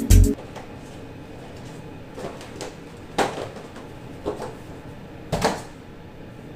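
Music cuts off just after the start; then cardboard boxes being handled and stacked: a few short knocks and scrapes, the loudest about five seconds in as a box is set down on the pile.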